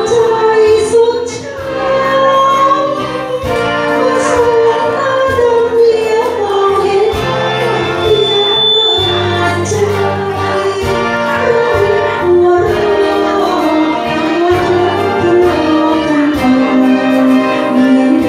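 A woman singing a melody into a handheld microphone, amplified through PA speakers over backing music.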